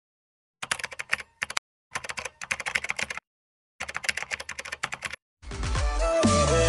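Keyboard typing sound effect: three bursts of rapid key clicks. Music fades in near the end and grows louder.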